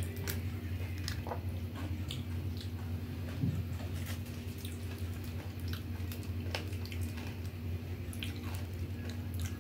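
Golgappa (pani puri) shells being handled, cracked open and chewed: scattered small crisp crackles and clicks, with a few wet squishes. A steady low hum sits underneath.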